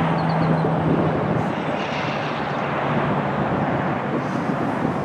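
Steady drone of a distant engine over a continuous rushing noise, its low hum fading during the first couple of seconds.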